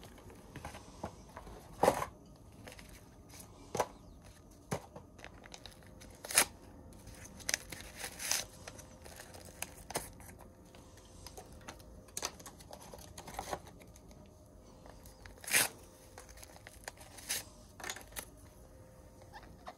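Paper tea bag wrappers being torn open and crinkled by hand while the bags are pulled out of their box: irregular short rips and rustles, a few of them louder.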